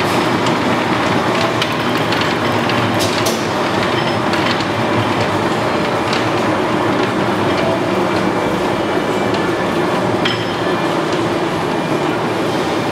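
A 1973 Lodge & Shipley oil-country hollow-spindle engine lathe running under power, its spindle drive giving a steady, even mechanical noise with a few faint clicks.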